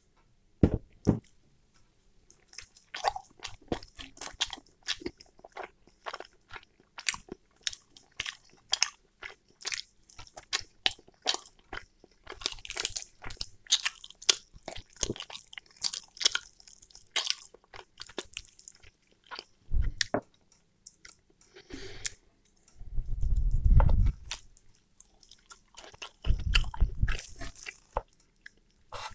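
Close-up chewing and biting of fried chicken, with wet mouth smacks and clicks and the sound of fingers pulling the meat apart. There are a few dull low thumps about two-thirds of the way in and again near the end.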